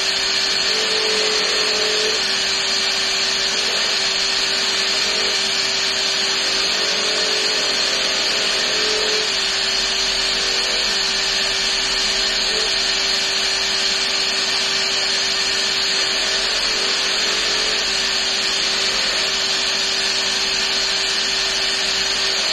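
Bench polishing machine running steadily, its brush wheel spinning as metal woodwind keys are held against it with polishing paste: a constant whirring hiss with a steady hum.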